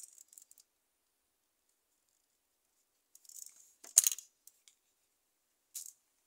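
Soft, high-pitched rustling of fingers working small pieces of black modelling clay on a board, with one sharp click about four seconds in, a few small ticks after it, and a brief rustle near the end.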